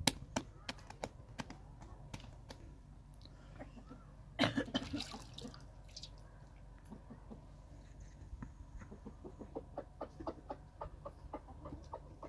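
Hands slapping a round of flatbread dough from palm to palm, sharp slaps a few times a second at first. A louder burst comes about four seconds in, and a run of quick soft ticks follows near the end.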